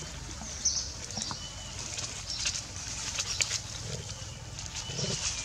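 Small splashes and pats of water in a plastic basin as a baby macaque dips and paddles its hands, with irregular light rustling and a few short high chirps.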